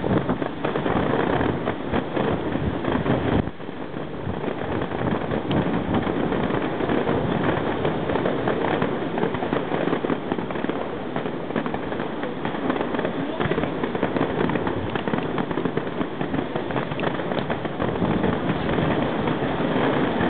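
Fireworks bursting, a continuous run of pops and crackles over a dense background noise.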